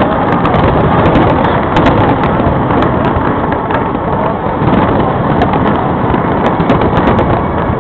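Fireworks going off in a continuous barrage: a loud, dense noise of many overlapping bursts with fine crackling on top and no single bang standing out.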